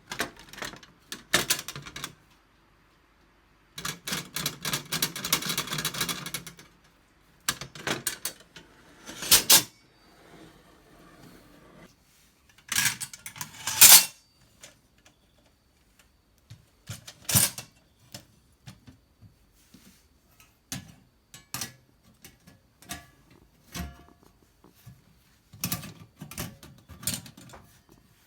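Snow Peak Takibidai SR stainless-steel fire pit being handled and set up: irregular metal clinks, clacks and knocks as parts are moved and fitted, with a couple of seconds of continuous rough, rubbing noise about four seconds in.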